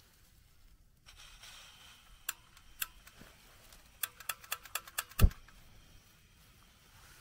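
Igniter clicks while a portable camping gas stove is lit: two single clicks, then a quick run of about seven, followed by a loud low thump a little after five seconds in.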